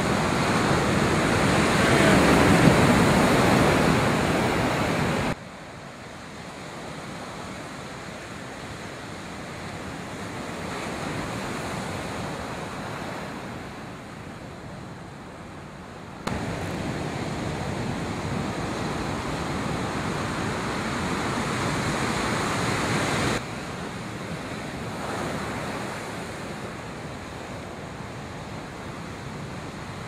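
Ocean surf: waves breaking and the whitewater rushing and washing in a steady roar. The sound is louder in the first few seconds, then drops suddenly to a softer wash about five seconds in. It jumps back up about sixteen seconds in and drops again a little after twenty-three seconds.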